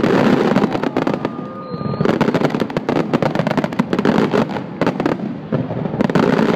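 Dense aerial fireworks barrage: a rapid, continuous crackle of many small bursts, mixed with heavier booms of bursting shells. It eases briefly about a second and a half in and again near the end before building back up.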